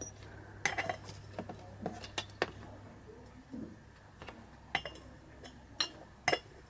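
Light, irregular metallic clicks and clinks of a piston ring and small tools being handled against a Super Cub engine cylinder while the ring end gaps are checked with a feeler gauge.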